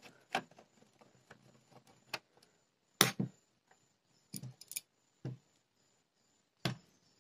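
Scattered sharp clicks and light knocks as a set-top box's metal casing is handled and turned over while its cover screws are taken out; the loudest knock comes about three seconds in.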